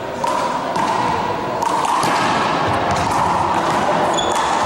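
A rubber handball is struck by hand and smacks off the wall and floor in a rally, several sharp slaps from about two seconds in, over a steady background noise.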